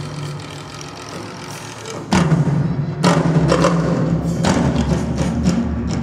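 Stage music: a steady low drone, joined about two seconds in by loud drum hits that come roughly once a second.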